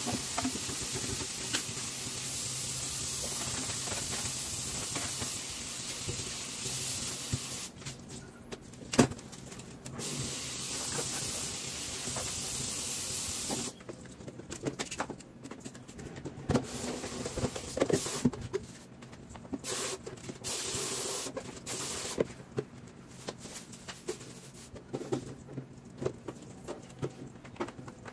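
Kitchen tap running steadily into a steel sink as dishes are washed, then the water stops and starts in short bursts while dishes and utensils clink and knock.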